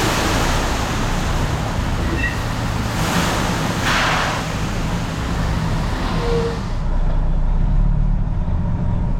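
Grain truck engine running with a steady low rumble, with two spells of hiss, one at the start and one about three to four seconds in.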